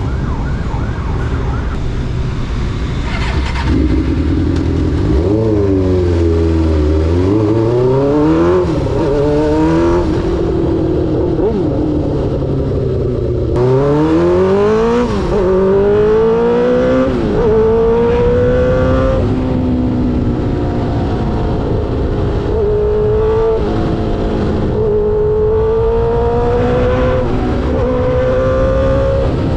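Suzuki GSX-R600 K5's inline-four through an SC-Project aftermarket exhaust, under way and accelerating, its revs climbing and dropping sharply again and again as it shifts through the gears. Wind noise runs underneath.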